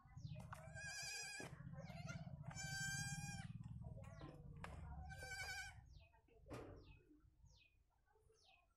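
Animal calls: three wavering, pitched cries about a second long each, then a few short high chirps that fall in pitch near the end, over a low rumble of wind or handling.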